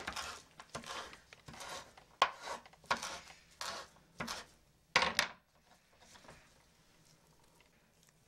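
Chef's knife chopping fresh cilantro on a wooden cutting board: irregular knocks of the blade on the board, about two a second, stopping about five seconds in.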